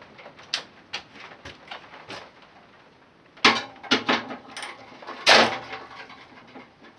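Irregular metallic knocks and clatters of hand tools and parts being handled, with a few louder clanks about three and a half to four seconds in and again near five and a half seconds.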